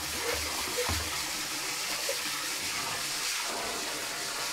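Water pouring from a hose into a partly filled plastic barrel, a steady rushing hiss.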